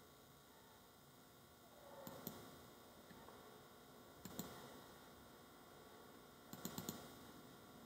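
Computer mouse button clicks over faint room hiss: a quick pair about two seconds in, another pair a little past four seconds, and four quick clicks near the seventh second.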